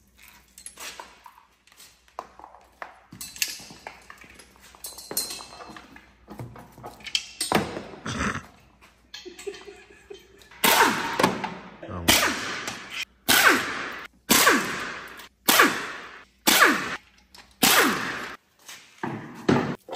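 Pneumatic wrench running in short bursts, about one a second, as bolts are run out of the Coyote V8's front timing cover. Before that, scattered lighter metal clicks and knocks of parts being handled.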